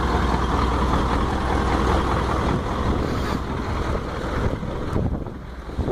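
Truck engine running steadily: a low, even hum under a noisy rush, easing off a little near the end.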